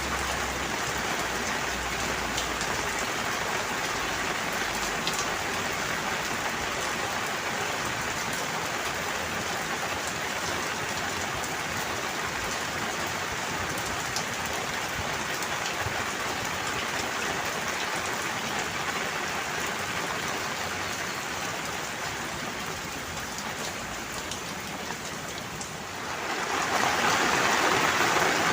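Steady rain falling, an even hiss with scattered drop ticks. It eases a little then swells louder near the end.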